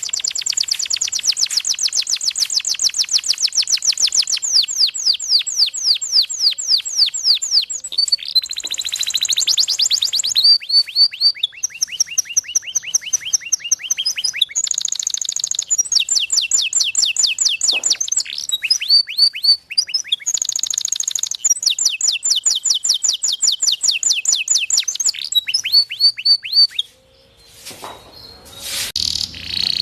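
Domestic canary singing a long song of rapid trills, each a fast run of repeated high notes, switching to a new trill every few seconds. It breaks off briefly near the end, then starts again.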